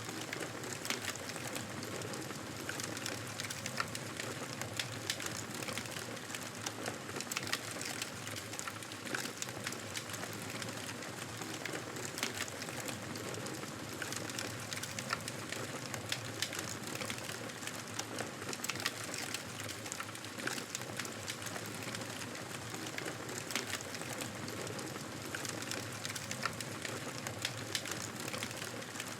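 Wood fire burning in a fireplace, crackling steadily with many small irregular pops and snaps over a soft hiss.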